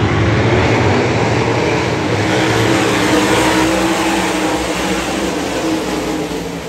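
A pack of winged 358 sprint cars racing past, their methanol-burning V8 engines running hard together in a loud, dense mass of engine noise. It fades slightly toward the end as the field moves away.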